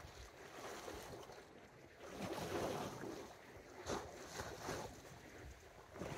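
Sea water lapping against a stone breakwater, with wind on the microphone. A couple of sharp clicks come about four and five seconds in as a fishing rod and spinning reel are handled during the retrieve.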